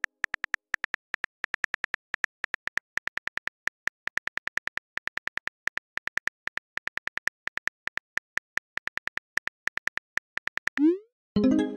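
Phone on-screen keyboard key clicks in a fast, uneven run as a text message is typed. Near the end a quick swoosh as the message is sent, followed by a short pitched tone.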